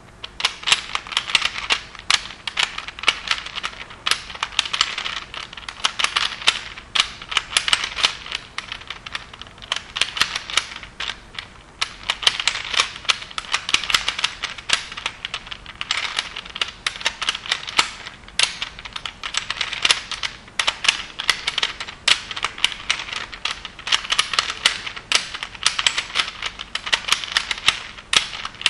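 Peter's Black Hole, a plastic 3x3 twisty puzzle, being turned rapidly by hand: a fast, uneven stream of clicks and clacks as its layers snap round, with brief pauses now and then.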